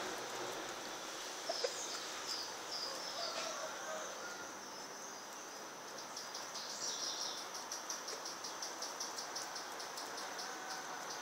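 Outdoor yard ambience: a steady high insect buzz, a few short high bird chirps in the first few seconds, and a run of light, rapid ticks in the second half.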